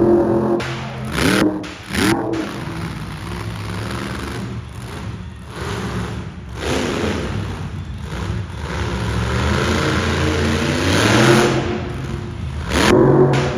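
Monster truck engine revving hard in repeated bursts, its pitch rising and falling. There are quick revs about one and two seconds in, a longer build around ten seconds in, and another burst near the end.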